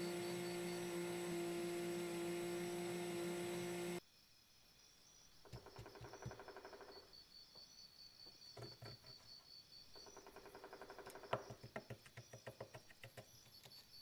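Cordless DeWalt drill/driver motor running with a steady whine, cutting off suddenly about four seconds in. After it come two quieter stretches of raspy scraping with a few sharp clicks.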